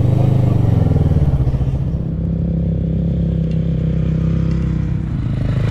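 Kawasaki Vulcan S 650's parallel-twin engine running at low speed on gravel, the engine note easing a little about two seconds in.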